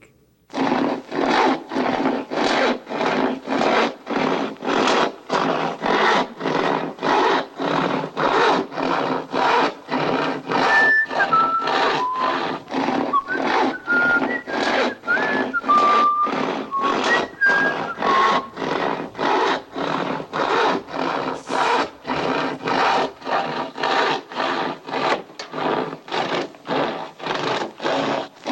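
Long handsaw cutting through wood in steady back-and-forth strokes, about two a second. From about eleven to eighteen seconds in, a short whistled tune sounds over the sawing.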